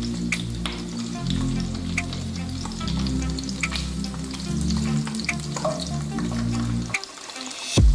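Food frying in a pan, a steady sizzle, with background music underneath that drops out about a second before the end.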